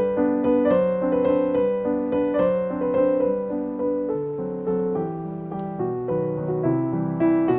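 Background music: gentle solo piano playing a steady flow of notes.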